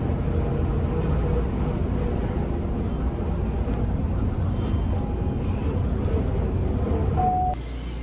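Inside a moving bus: the steady low rumble of the engine and road noise, with a brief beep near the end before it cuts off suddenly.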